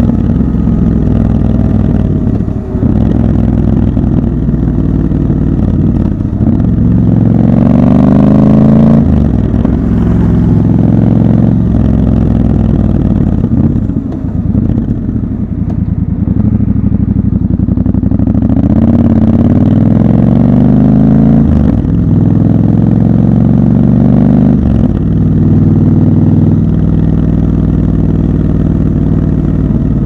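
Triumph Scrambler 1200 XC's 1200 cc parallel-twin engine under way, pulling up in pitch and dropping back at each gear change, again and again, with spells of easing off between.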